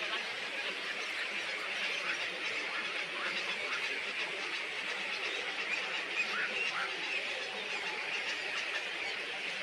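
Many birds calling at once in a dense, steady chorus of short chirps and chattering.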